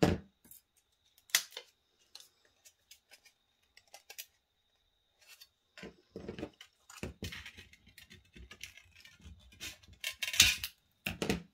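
Scissors snipping through thin aluminium drink-can sheet: a few crisp, irregular cuts mixed with the light crinkle and clink of the metal being handled. The loudest snip comes near the end.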